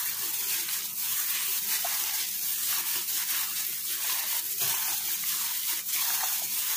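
Raw chicken pieces being tossed by hand with dry seasoning in a glass bowl: irregular wet squelches and slaps of meat against meat and glass, over a faint steady hum.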